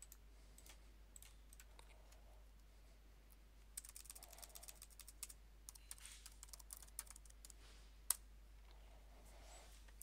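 Faint keystrokes on a computer keyboard, scattered at first and coming quickly from about four seconds in, with one sharper click near eight seconds.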